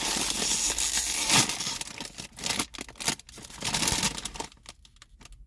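A chip bag being torn open: a dense tearing rustle for about two seconds, then scattered crinkles as the bag is handled, fading near the end.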